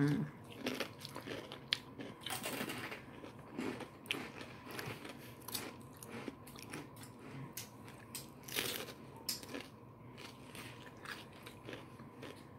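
Close-up crunching and chewing of raw mini sweet peppers stuffed with cream cheese, in irregular crisp bites, the loudest about two seconds in and again near nine seconds.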